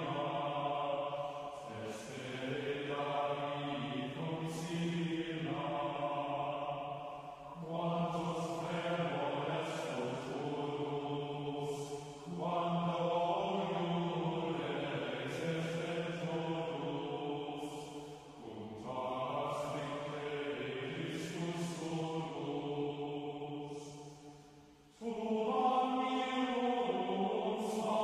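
Background music of slow vocal chanting with long held notes, moving to a new phrase every few seconds; a louder phrase comes in near the end.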